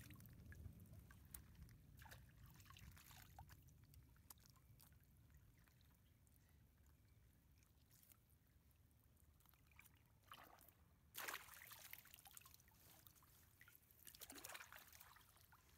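Faint water trickling and sloshing as hands work a fishing net in shallow water, with a few brief small splashes, the sharpest about two-thirds of the way through.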